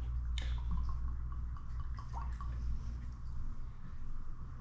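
Liquor poured from a bottle, a click about half a second in and then a run of small glugging drips for a couple of seconds.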